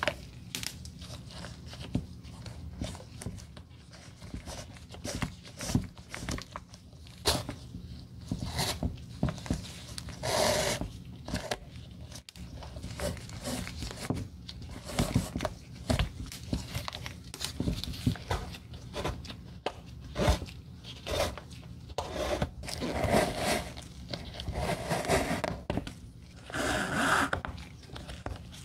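Flat shoelaces being pulled and slid through the eyelets of a white leather sneaker by gloved hands: irregular short rubbing and scraping strokes.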